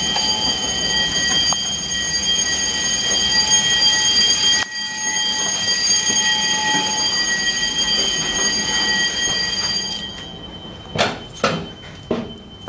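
Fire alarm sounding a steady high-pitched tone, with a brief break a little under five seconds in. It cuts off about ten seconds in, followed by a few knocks.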